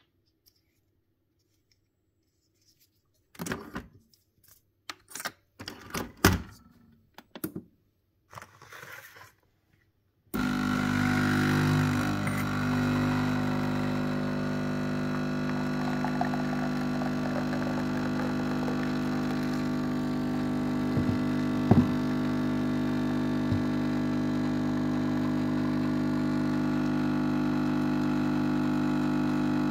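Clicks and knocks of a Nespresso capsule being handled and loaded, then about ten seconds in the coffee machine's pump starts suddenly and buzzes steadily as it brews espresso into a glass.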